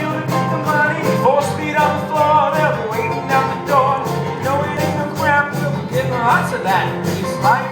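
Acoustic bluegrass-style string music: a fast tune with a steady picked rhythm and a melody line that slides up and down in pitch.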